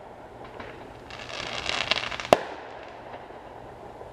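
Aerial fireworks going off: about a second of rapid crackling, then a single sharp bang a little past the middle, with a few faint pops around it.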